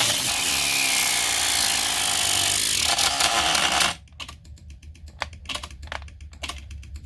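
Small toy quadcopter's propeller motors running at high throttle with a high whine, cutting out abruptly about four seconds in. Scattered knocks and clicks follow.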